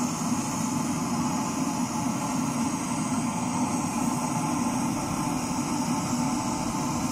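Steady, unbroken roar of the melting furnace's burner at a bell casting, while molten bronze is being poured.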